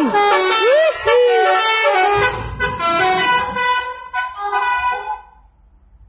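Tour bus's telolet musical horn playing a quick tune of several sliding, rising and falling notes, cutting off about five seconds in. The bus engine's low rumble comes up under it midway as the bus pulls away.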